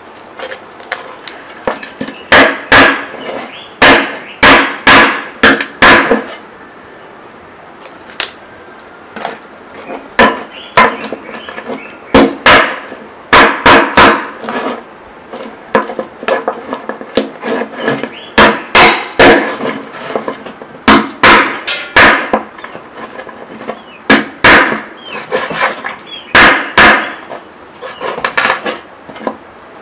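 Loud, hard knocks, struck in quick bursts of four to six with short pauses between bursts, like something being pounded or hammered.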